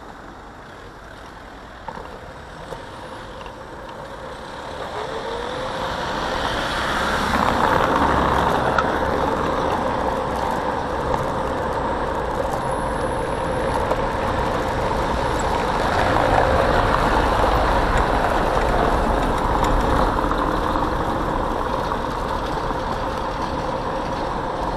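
Riding noise picked up by a camera mounted on a Xiaomi Mijia M365 electric scooter moving through street traffic: a steady rush of wind and road rumble with a faint steady hum. It grows much louder over the first eight seconds, then stays loud.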